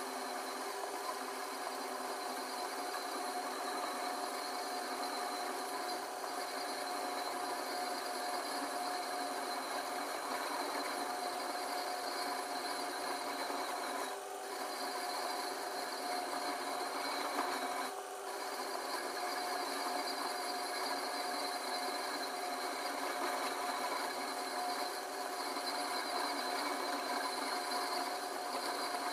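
Small metal lathe running steadily with a whine while a flat abrasive file rubs against the spinning copper pipe, grinding its surface. The sound dips briefly twice, about halfway through.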